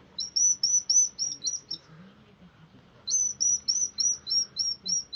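Baby hedgehog whistling: two runs of rapid, high-pitched peeps, about seven and then about ten, each a short falling note, at about five a second with a pause of about a second between the runs.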